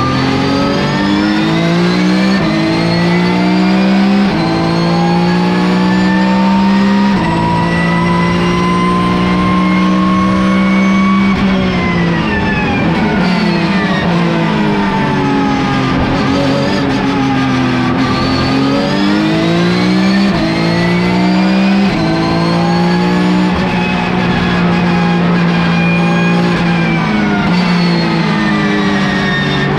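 Porsche 991 GT3 Cup race car's flat-six engine, heard from inside the cabin, at full throttle. Its pitch climbs and drops back in quick steps at each upshift, then falls away under braking around the middle, and climbs again through more upshifts.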